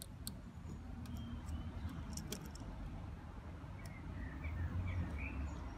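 Light clicks and taps of spade terminals and wires being handled and pushed into a plastic connector block, a few sharp clicks in the first three seconds or so, over a steady low background rumble. Faint bird chirps come in near the end.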